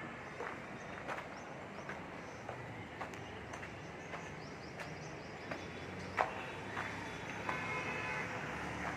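Construction-site ambience: a steady background rumble of activity with scattered sharp knocks and clanks, the loudest about six seconds in. A brief high squeal comes about seven and a half seconds in.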